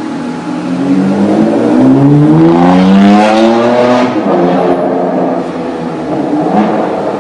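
A supercar engine revving hard, its pitch climbing steadily for about three seconds, then dropping back about four seconds in to a rougher, lower running sound.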